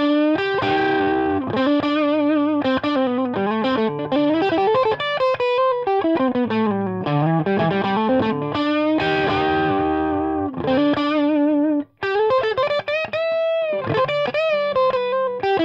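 Electric guitar played through a Chandler GAV19T valve amp head and Marshall cabinet, fed by an optical-fibre Light Lead cable: a loose improvised noodle of single notes and chords with bent notes. The playing stops briefly about twelve seconds in, then carries on.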